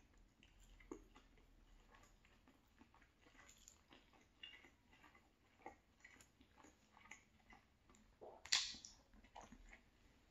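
Faint close-up chewing of sausage rigatoni, a string of soft mouth clicks, with one brief louder sound about eight seconds in.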